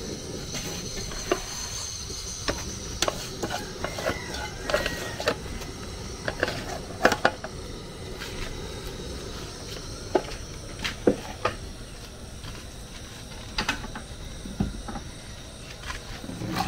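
Scattered clinks and knocks of aluminium cookware as washed jute leaves are handled and dropped into a pot and a colander is moved, with irregular sharp knocks a few seconds apart over a steady background.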